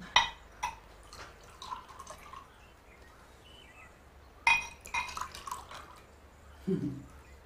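A drink poured from a bottle into small glasses, with sharp glass clinks just after the start and again about halfway through, and a faint trickle of liquid in between.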